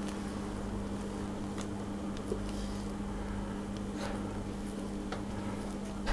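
Steady low electrical hum, with a few faint taps and scrapes of a silicone spatula on a ceramic mixing bowl as thick cake batter is scraped out into a tin.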